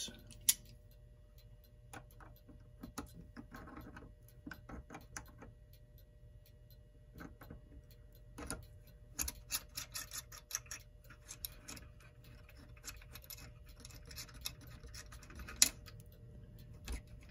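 Small, irregular metallic clicks and taps as the nuts holding a clock movement to its faceplate are worked off with a tool, with a busier stretch of clicking about two-thirds of the way through.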